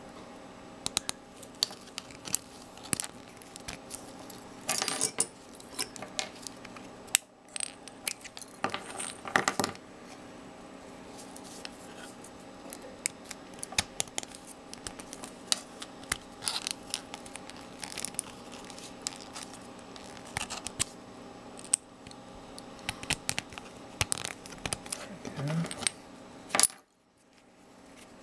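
Scattered light clicks and taps of small 3D-printed plastic parts being handled and pinned together with a length of filament, with a few short scraping rustles, over a steady faint hum.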